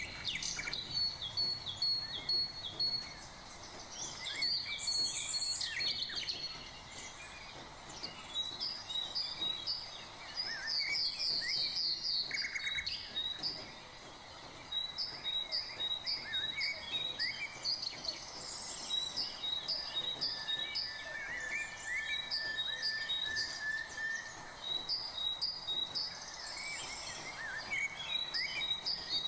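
Birds chirping in the background, one repeating a short high chirp over and over at an even pace, with other scattered calls mixed in, over a faint steady hiss.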